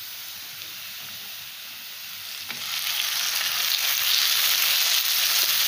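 Chopped onions frying in hot oil in a kadai, a light steady sizzle; about two and a half seconds in, chopped tomatoes go into the pan and the sizzle grows much louder.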